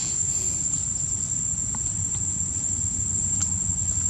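Insects trilling in one steady, unbroken high note over a low steady rumble, with a couple of faint clicks.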